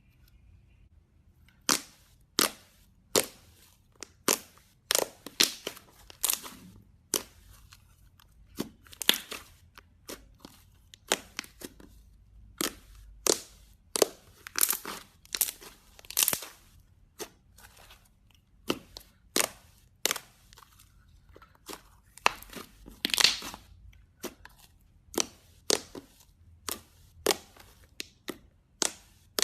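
Slime being squeezed and pressed by hand, giving a long run of sharp pops and crackles, about one or two a second, starting a couple of seconds in.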